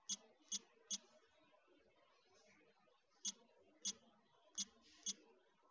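Smartphone on-screen keyboard clicking with each key press as a word is typed. There are seven sharp, short clicks at an uneven pace: three within the first second, then four more from about three seconds in.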